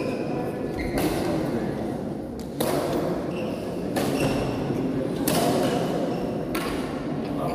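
Badminton rackets striking a shuttlecock in a rally, five sharp hits spaced about a second and a half apart, each ringing on in the large hall. A few short high squeaks of shoes on the court floor come between the hits.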